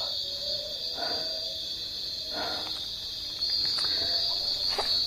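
A chorus of crickets giving a steady high-pitched trill, growing louder about three and a half seconds in, with a few soft rustles over it.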